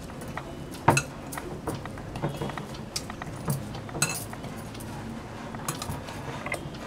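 Wrist bangles clinking against one another and against a glass mixing bowl while hands knead oiled dough in it: irregular light clinks, the sharpest about a second in and another about four seconds in.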